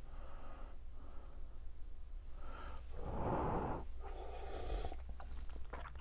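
A person sipping espresso from a cup and breathing out, in two breathy noise passages, with a few light clicks near the end over a low steady hum.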